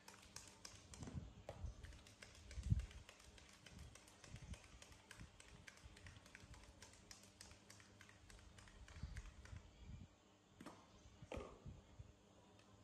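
Plastic baby feeding bottles being handled, with a quick run of light clicks and taps and a few soft low thumps as they are set down on a formula tin.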